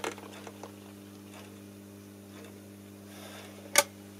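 Small clicks and taps of a soldering iron working on the lugs of a guitar volume potentiometer, with one sharp click near the end. A steady electrical hum runs underneath.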